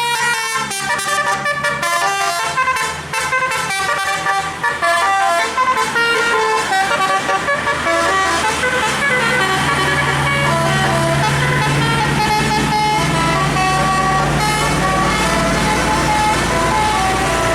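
Bus 'telolet' multi-tone horn playing a fast melody of short notes stepping up and down in pitch, with a bus engine running and growing louder beneath it from about halfway through.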